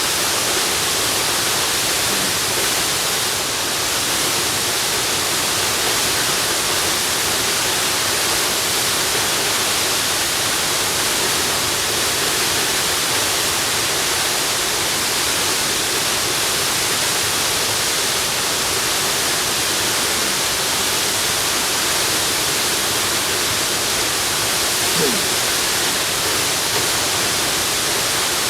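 Waterfall: a steady, even rush of falling water, hissy and unbroken throughout.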